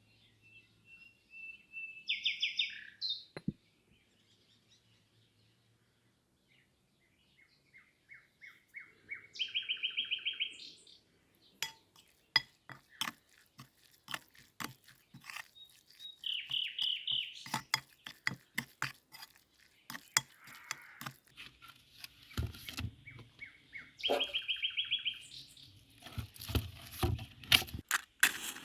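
A songbird singing a short, fast trilled phrase four times, roughly every seven seconds. From about halfway through, a run of sharp clicks and knocks comes in as well, heaviest near the end.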